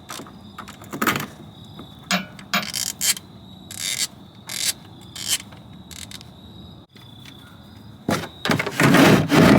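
Ratchet clicking and small metal clinks as a 14 mm socket loosens the oil drain plug, in scattered strokes, then a dense run of rapid clicks near the end.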